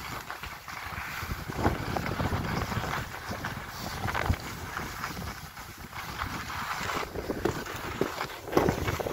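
Wind rushing over the microphone while sliding down packed snow, with the scrape and chatter of the edges on the snow. A few sharper knocks stand out, the loudest near the end.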